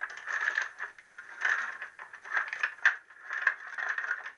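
Triumph T120R final drive roller chain rattling and clinking in irregular bursts as it is rolled off the front sprocket and pulled away.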